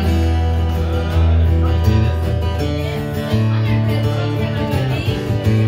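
Acoustic guitar strummed through changing chords in an instrumental break with no singing.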